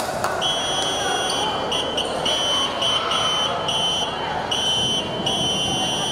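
A high-pitched, alarm-like beep sounding on and off in irregular short and longer pulses, over the steady murmur of a crowd in a gym.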